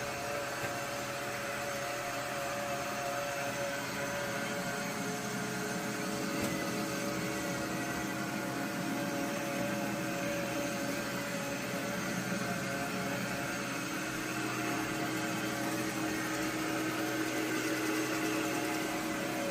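LG Roboking AI All-in-One robot vacuum running: a steady whirring motor noise with a few held tones, one low tone coming and going.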